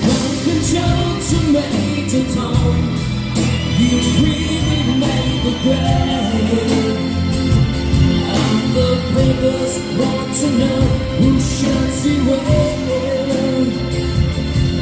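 Live rock band playing: a drum kit, bass and keyboards or guitars, with singing over it, heard at a steady high level.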